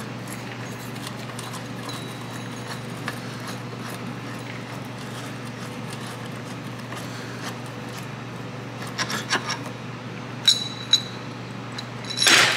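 Steel bushing press tool being unscrewed and taken apart by hand: quiet small clicks, then a few metal clinks in the last few seconds, two of them ringing briefly. A low steady hum underneath.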